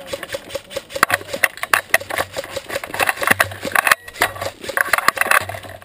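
Handling rattle from an airsoft M249 with a camera mounted on it, carried while walking: irregular clicks and clinks of the gun, its sling and fittings, over dull footsteps on grass and dry leaves.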